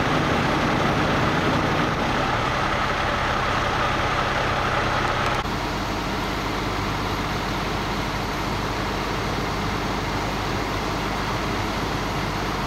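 Heavy vehicle engine idling steadily: a constant low hum under a dense running noise. It becomes slightly quieter and deeper about five seconds in.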